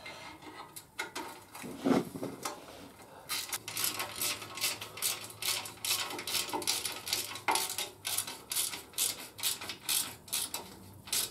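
Hand socket ratchet clicking in quick, even strokes from about three seconds in, running an engine-cover bolt in on the motorcycle. Before that there are a few scattered clicks and a single knock about two seconds in.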